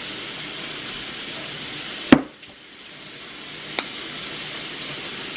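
Steady sizzling hiss of food frying in a pan. A single sharp knock comes about two seconds in, the loudest moment, and a lighter tap follows a second and a half later.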